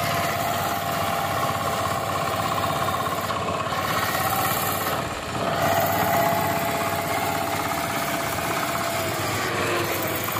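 VST Shakti 130 DI single-cylinder diesel power tiller running steadily under load as its rotary tiller works the soil. The level dips briefly about five seconds in.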